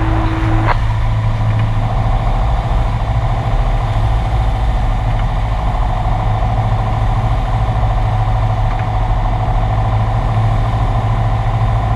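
Cessna 172's piston engine and propeller droning steadily, heard inside the cabin through the headset intercom. A radio transmission cuts off with a click just under a second in.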